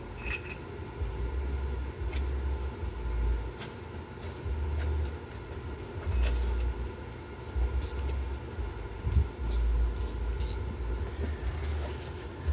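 Scattered metallic clicks and clinks of a socket wrench working on a belt tensioner bolt over an irregular low rumble that swells and fades, with a few quick clicks close together near the end.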